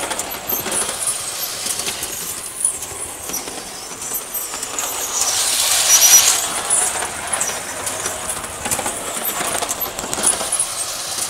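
Standard gauge model trolley running on its track under live overhead catenary wire: a steady rattle of motor and wheels with light clicking. It grows louder as the trolley passes close by about five to six seconds in, then fades.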